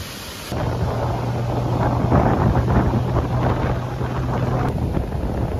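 Wind rushing over the microphone on a motorboat under way, with the boat engine's steady low drone underneath. It starts suddenly about half a second in.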